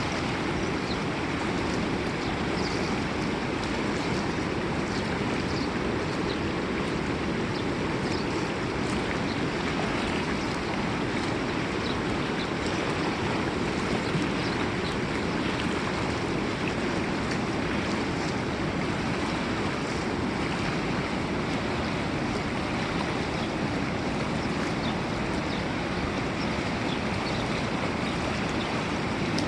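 River water rushing steadily, with small splashes flecked through it.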